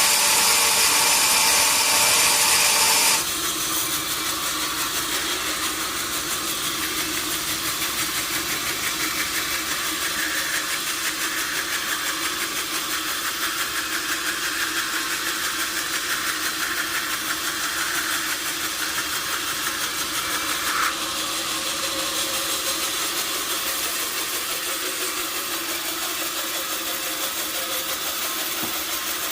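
Sawmill saw cutting through a mahogany log, ending abruptly about three seconds in; the machinery then keeps running steadily, more quietly, with a faint even pulse.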